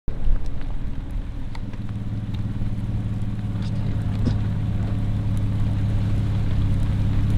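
A motor vehicle's engine running steadily and slowly growing louder, with scattered light ticks of raindrops.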